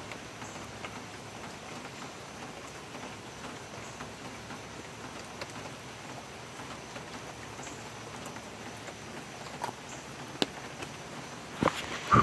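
Steady rain falling, an even hiss. A few sharp clicks and knocks come near the end.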